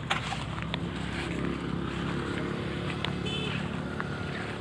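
An engine running steadily, a low hum with a few sharp clicks over it.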